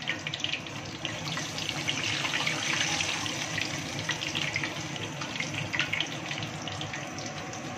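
A breaded cheese stick on a skewer deep-frying in hot oil, a steady sizzle with fine crackling.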